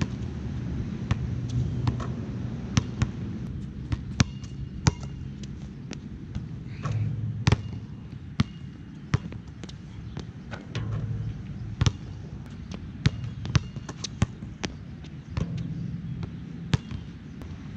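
Nike Jordan Hyper Grip 4P basketballs bouncing during shooting practice: a scatter of sharp, irregularly spaced thuds, with a low hum coming and going behind them.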